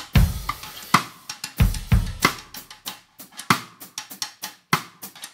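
Snare drum played as a short groove: sharp cross-stick clicks on the rim, with a stick drawn across the rim for a light scraping effect. Two deep booms fall away near the start and about one and a half seconds in.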